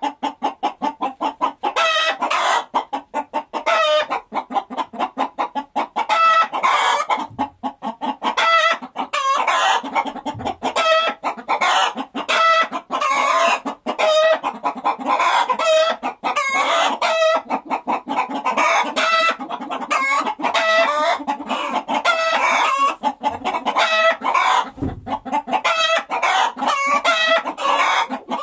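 A flock of chickens clucking and squawking in a rapid, unbroken chorus of overlapping calls.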